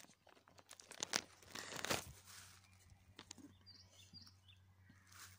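Rustling and crinkling with scattered clicks, loudest about one to two seconds in, followed by a few faint, high chirps of small birds about four seconds in.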